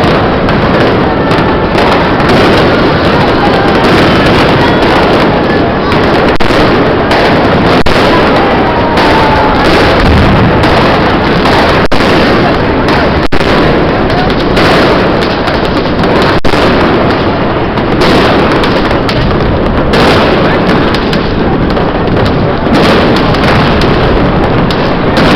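Dense New Year's fireworks and firecrackers going off without a break, very loud, with many sharp bangs and pops and an occasional whistle.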